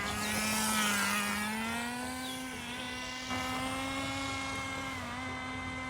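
Nitro engine of a Redcat Racing Lightning STR RC car running at high revs on a run: a steady high-pitched whine whose pitch climbs slowly, dipping briefly about a second in and again near the end.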